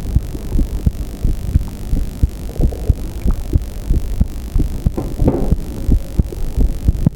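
A person's heartbeat: heart sounds picked up as a run of low, regular thumps, a few to the second.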